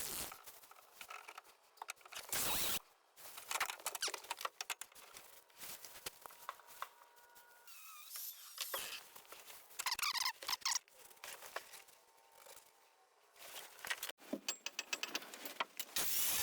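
Scattered light clicks, knocks and brief squeaks of steel tubing and tools being handled while bars are fitted into place.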